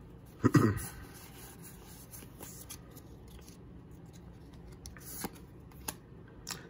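Pokémon trading cards being handled and flipped through in the hands: soft sliding and rustling of card stock with a few light clicks. A brief voice sound comes about half a second in.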